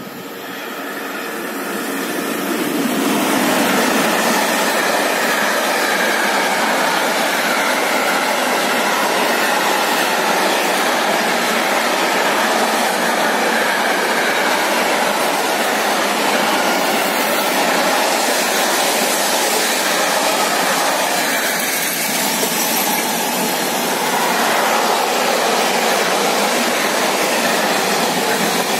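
Container freight train hauled by a BB 27000 electric locomotive, approaching and then passing close by. The noise builds over the first few seconds as the train arrives, then settles into a steady rolling noise of the wagons' wheels on the rails.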